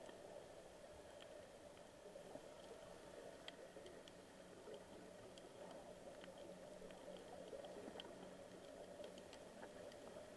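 Faint underwater ambience picked up by a camera below the sea surface over a coral reef: a low, steady wash of water with scattered faint clicks.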